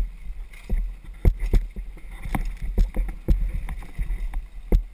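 Downhill mountain bike ridden fast over a rooty dirt trail: a constant low rumble of wind on the microphone and tyres, broken by repeated sharp knocks and rattles as the bike hits roots and bumps, loudest about a second and a quarter in and again near the end.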